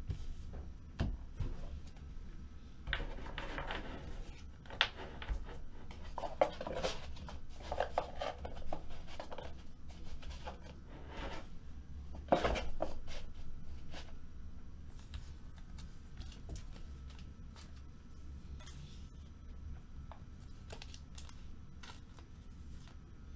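Trading cards and their packaging being handled on a table: soft rustling and sliding, with scattered light taps and one sharper click about halfway through.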